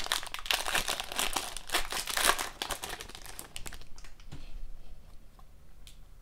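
Foil trading-card pack wrapper crinkling and tearing as it is ripped open. After about four seconds it dies down to faint, scattered clicks of the cards being slid apart.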